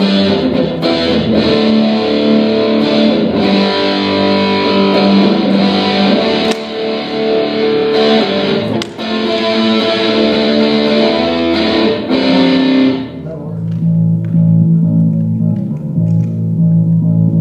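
Amplified electric guitar playing through effects with some distortion, a dense run of notes that cuts off about thirteen seconds in; lower notes carry on after.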